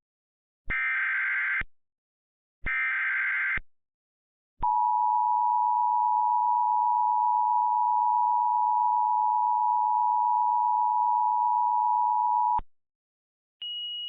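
Emergency Alert System header: two one-second bursts of SAME digital data, heard as a harsh warbling screech, a second apart. Then the EAS two-tone attention signal (853 and 960 Hz together) is held for about eight seconds and cuts off. About a second before the end, a fainter steady high tone begins.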